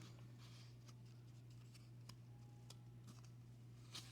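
Near silence: a steady low hum with a few faint light clicks, and a slightly louder click near the end.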